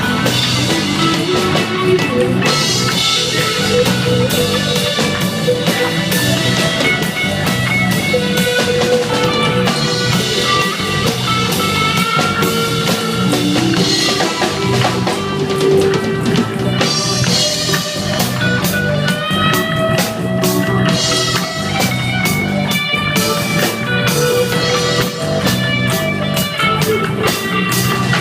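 Reggae dub band playing: electric guitar, bass and drum kit in a steady groove.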